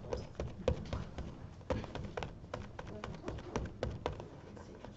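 Foam sponge dabbing acrylic paint through a plastic stencil onto a stretched canvas: quick irregular taps, several a second, thinning out near the end.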